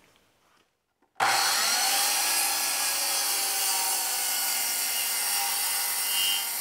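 DeWalt sliding compound mitre saw running and cutting through an oak timber, a steady whine with the rasp of the blade in the wood. It starts suddenly about a second in.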